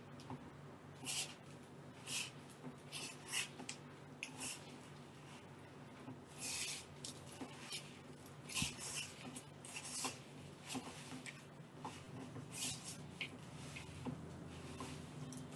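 Hands squishing and rubbing a crumbly cookie dough mixture in a bowl, in irregular soft scrunches and rustles, over a low steady hum.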